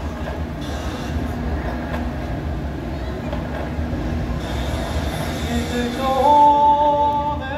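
A steady low background rumble, then about six seconds in a mixed choir comes in with a loud held chord.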